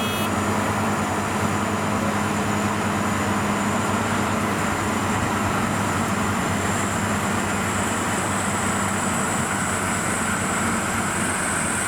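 Rice-harvesting machinery (combine harvester and rice-hauling tractor) running steadily, a continuous engine drone at an even level.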